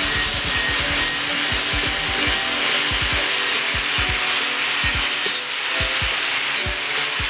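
Steady rasping, abrasive tool work, like sawing or rubbing a workpiece, under background music.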